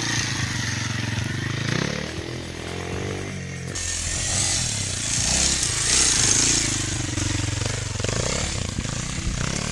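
Kawasaki 230 dirt bike's single-cylinder four-stroke engine revving and pulling away as it rides off-road, its pitch rising and falling with the throttle. About four seconds in the sound changes abruptly and a brighter hiss joins it.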